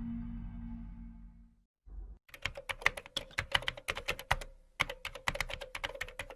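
Music fades out over the first second and a half. After a short silence comes fast typing on the A4Tech KR-85 USB keyboard, a rapid run of key clicks with a brief pause about halfway through.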